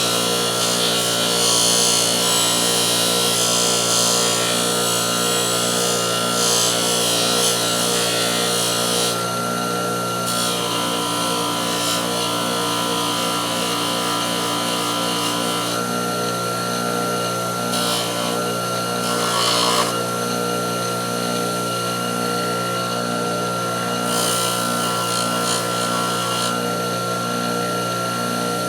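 Electric power tool motor running steadily while its spinning wheel works the steel of a pair of pliers. A rough hiss swells and eases off several times as the part is pressed on and drawn away, typical of polishing metal on a powered wheel.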